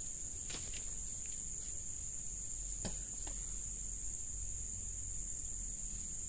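Insects trilling in one steady, high-pitched drone, with a few faint clicks in the first half.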